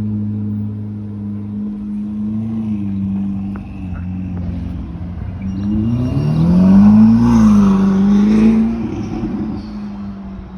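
Sports car engine with a Friedrich Motorsport aftermarket exhaust running at a steady idle, then revved: the pitch rises to a peak and falls back, the loudest part, about six to eight seconds in. It is loud enough to be called brutal.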